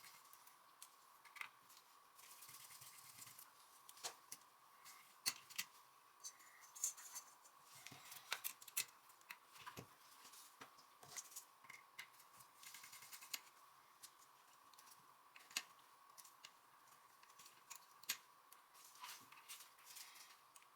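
Faint, irregular clicks and light scraping from small tools handling the metal parts of a Nikon S2 rangefinder camera during disassembly, over a faint steady high hum.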